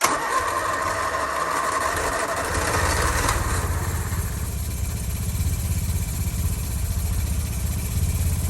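Classic Mini's A-series four-cylinder engine running after being coaxed to start: a rougher, busier note for the first three seconds or so, then settling into a steady, pulsing idle.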